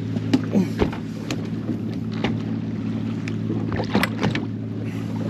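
Boat motor idling steadily with a low hum, with scattered clicks and knocks of handling on the boat.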